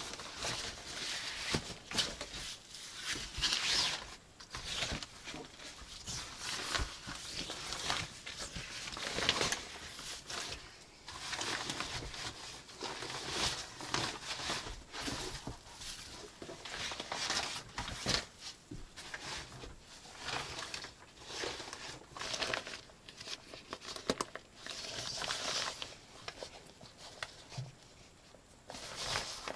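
Continuous irregular rustling and crinkling, studded with many small clicks and knocks.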